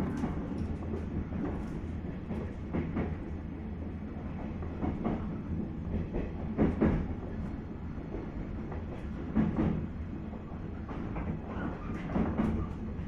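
Interior running sound of a 719 series electric multiple unit motor car (KuMoHa 719-1): a steady low rumble with irregular clacks and knocks from the wheels over the track, the loudest at about seven and nine and a half seconds in.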